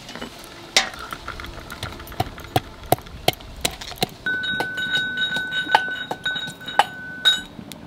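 Metal pestle pounding green chillies and ginger in a metal mortar: sharp metallic clinks and knocks, a few a second. About halfway in a steady high ringing tone starts and holds for about three seconds alongside the knocks.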